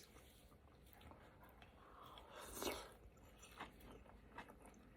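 Faint close-up chewing of soft food, with a few small clicks and one short, louder breathy sound about two and a half seconds in.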